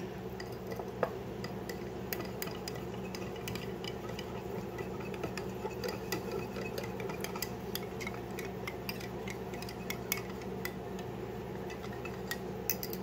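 Small metal wire whisk beating a cornstarch-and-water slurry in a glass bowl: a quick, irregular run of light ticks and clinks as the wires strike the glass, over a steady low hum.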